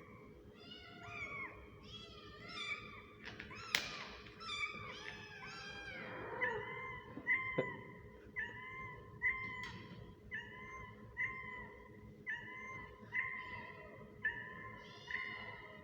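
Kitten mewing over and over in high-pitched calls, several overlapping at first, then settling into a steady run of short mews about one a second. A sharp click comes a little before four seconds in.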